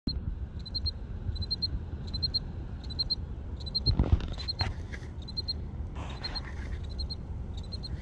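Field cricket chirping steadily: a high chirp of three or four quick pulses a little more than once a second. A low rumble runs underneath, with brief rustles about halfway through.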